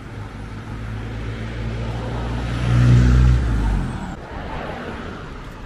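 A car driving past on the road: its engine and tyre noise swell to a loud peak about three seconds in, then fade away.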